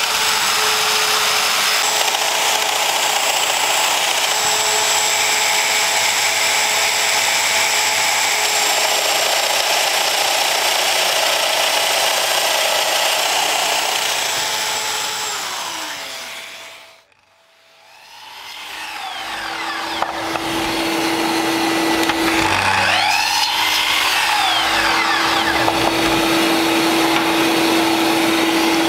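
Festool Domino DF 700 EQ joiner running as it cuts mortises in oak, with its dust extractor. Its motor winds down with a falling whine about halfway through. After a brief pause a sliding mitre saw spins up to a steady whine and cuts through wood several seconds later.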